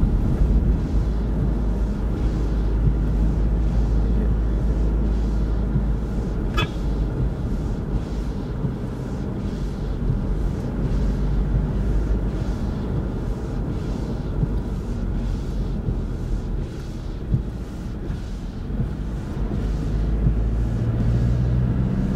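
Steady low rumble of a car driving, heard from inside the cabin, with a brief high squeak about six and a half seconds in.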